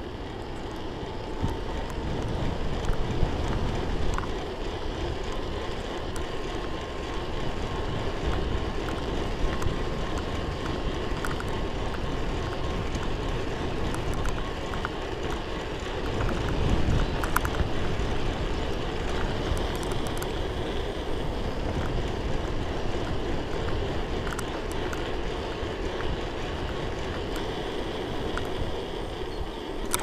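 Wind rushing over the microphone and tyre noise of an e-bike ridden at speed on tarmac under power from its rear hub motor, steady with a brief swell past the middle.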